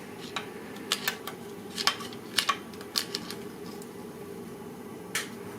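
Scattered sharp metallic clicks and taps, about eight at irregular intervals, as a screwdriver works the crankshaft gear and clutch basket of a Honda CBR600F4i engine to free the basket. A steady low hum runs underneath.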